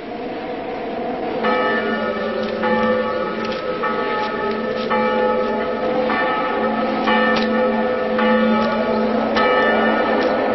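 Bell tones struck about once a second, each ringing on over a steady low drone, beginning about a second and a half in: a bell-led film background score.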